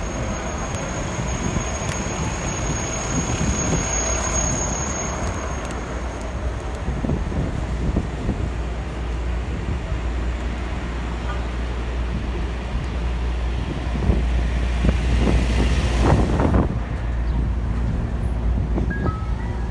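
City street traffic heard from a moving bicycle: cars and trucks running and passing, over a steady low rumble. A thin high whistle sounds for the first five seconds or so, and one vehicle passes louder about 15 seconds in.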